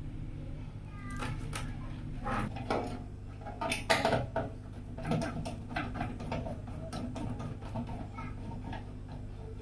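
Irregular clicks and light knocks of hard parts being handled, over a steady low hum; the loudest knocks come about four seconds in.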